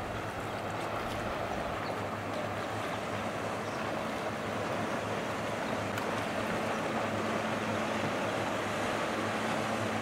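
Powerboat engine running steadily at speed, a low hum under the rush of water and wind on the microphone, growing slightly louder.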